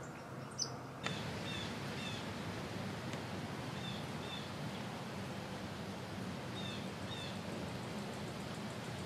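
Outdoor field ambience: a steady background hiss with a bird giving short chirps in pairs every couple of seconds. A sharp click comes about half a second in, and the background hiss steps up suddenly about a second in.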